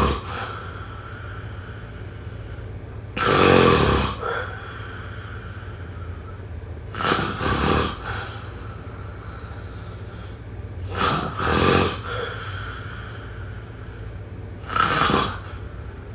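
A person snoring: four snores about every four seconds, each lasting about a second, with a steady low hum between them.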